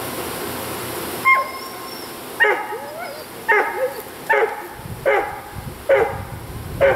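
A dog barking, seven short barks about a second apart starting about a second in, over the steady hum of a honeybee swarm at the hive.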